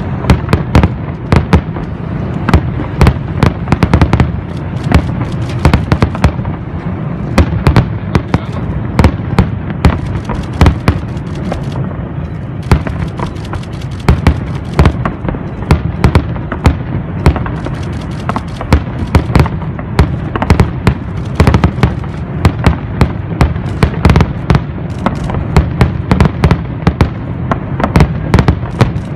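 Fireworks going off continuously: a dense, irregular barrage of sharp firecracker bangs and pops over a steady low rumble of aerial bursts.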